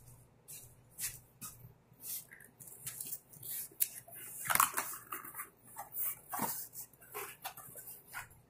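A dog whining and giving short yips, with scattered short clicks in between; the loudest cry comes about four and a half seconds in.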